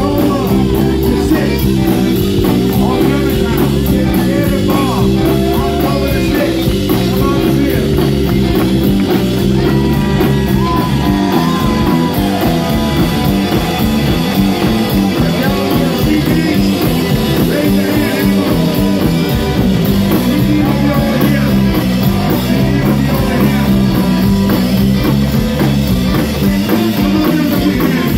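Live band playing loudly: electric guitar over electric bass, drum kit and keyboard, with a steady repeating bass line.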